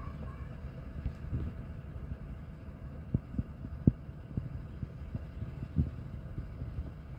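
Low outdoor rumble with several short, soft thumps scattered through it, typical of wind buffeting a phone's microphone.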